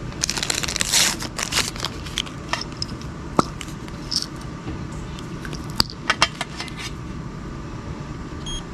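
Small objects being handled: a dense run of clicks and crackling rustle for about a second and a half near the start, then scattered sharp clicks and taps, over a steady room hum.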